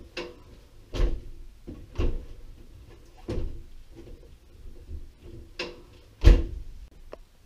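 Knocks and rattles as a built-in dishwasher is handled, about six separate thumps over several seconds, ending with the loudest thud a little after six seconds as its door is shut.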